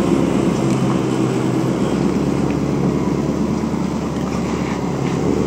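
Land Rover Defender engine running steadily at low revs under load as the SUV crawls over rocks.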